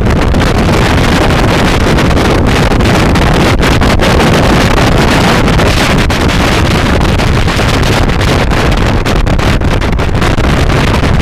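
Loud, steady wind buffeting the microphone of a scooter being ridden at speed.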